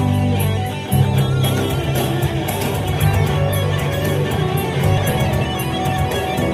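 Ibanez electric guitar playing a fast lead solo, with a held note given vibrato about a second in and two-handed tapping on the fretboard, over a backing part with a steady beat.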